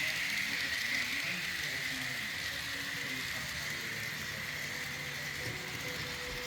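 N-scale model locomotives running on the layout's track: a steady whirring hiss with an even high hum.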